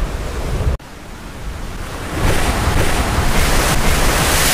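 Ocean surf: a steady rush of breaking waves that cuts out abruptly about a second in, then builds back up over the next second or so and carries on.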